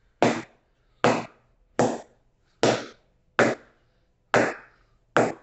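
An old leather cricket ball bounced repeatedly off the face of a new willow cricket bat, a knock-up test of the bat's response. Seven sharp wooden knocks, about one every 0.8 s, each with a short ring.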